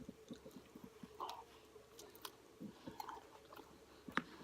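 A person chewing a mouthful of food close to the microphone, with small wet, smacking clicks at an irregular pace.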